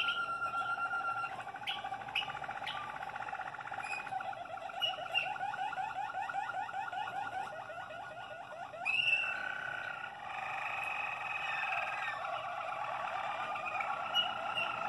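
Malinois Waterslager canaries singing in their show cages: steady low-pitched song of fast rolling trills, with a change to a different tour about nine seconds in.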